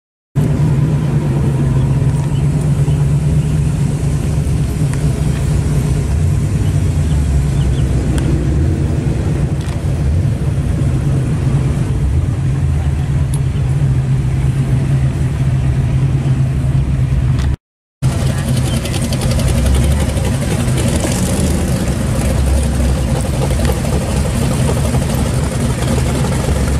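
A 1962 Chevrolet four-door sedan's engine running with a steady, low exhaust note as the car rolls slowly past. After a cut near 18 seconds, a 1958 Chevrolet hardtop's engine runs with a similar steady low note as it creeps by.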